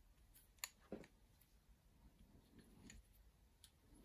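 Near silence broken by a few faint clicks and a light knock about a second in, from small steel lathe parts (the cross slide and toolpost) being handled.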